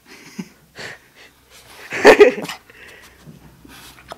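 Lhasa Apso puppy making breathy sounds, with one short, loud bark about two seconds in.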